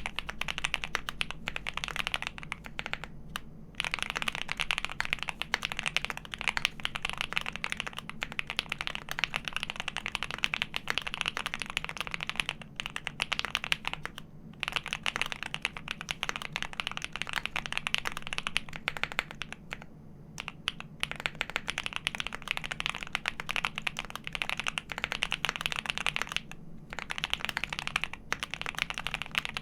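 Continuous fast typing on a custom mechanical keyboard with lubed Alpaca linear switches, 65g springs, a PC plate and GMK keycaps: dense key clacks, broken by a few short pauses.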